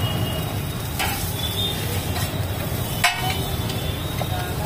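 Metal spatula scraping and tapping on a large flat tawa griddle as noodles are stir-fried, with two sharp knocks about a second in and about three seconds in, over a light sizzle. A steady low rumble runs underneath.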